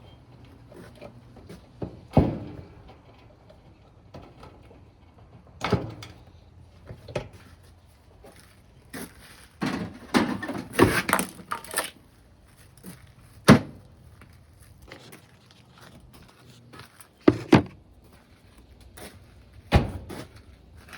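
Scattered knocks and thunks of dryer parts and panels being handled during a teardown, with a busier run of clattering about halfway through.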